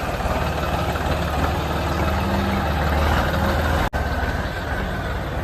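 Tractor's diesel engine running steadily at low revs, with a momentary dropout about four seconds in.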